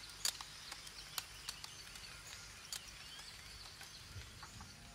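Faint background ambience: a soft high hiss with scattered light clicks and a few faint, high bird-like chirps.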